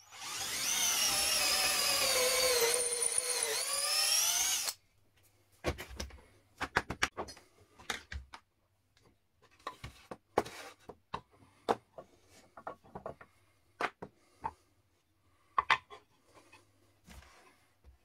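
Cordless drill boring a hole down into a wooden block: a steady whine whose pitch sags as the bit bites and rises again just before it stops suddenly, about four and a half seconds in. Then a string of light wooden knocks and clicks as wood pieces and a drill are handled and set down on the bench.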